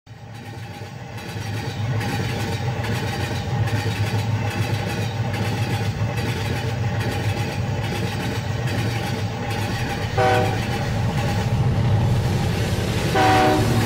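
Steam train running, a steady low rumble with a regular beat that fades in over the first two seconds. Two short pitched tones sound, about ten and thirteen seconds in.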